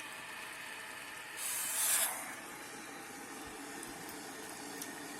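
A short splash of hot water poured from an electric kettle into a bowl of soup powder: one hissing burst under a second long, about a second and a half in, over a steady background hiss.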